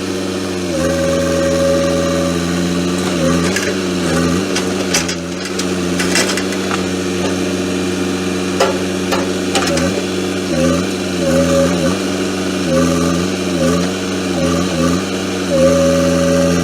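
Excavator's diesel engine running, its pitch sagging briefly and recovering again and again as it takes load, with a few knocks in the middle.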